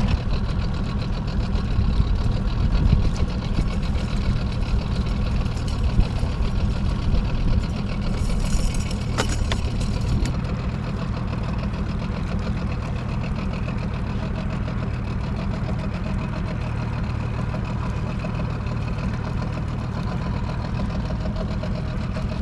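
Boat motor running steadily at low trolling speed, a constant low drone, with a brief hiss about eight seconds in.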